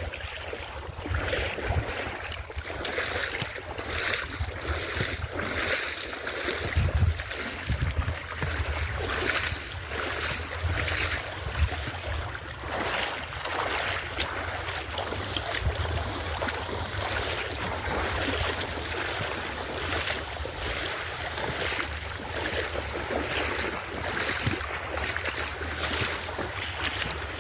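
Hurricane wind and rushing water: a steady, gusting roar with wind rumbling on the microphone.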